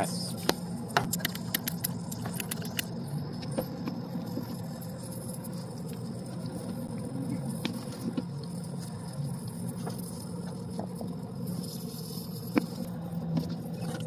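Leak-detection soap solution foaming and crackling with many small pops on an evaporator coil tube bend where R-404A is escaping under about 50 to 60 psi of standing pressure, the sign of a major leak. The pops are thickest in the first few seconds, over a steady low hum.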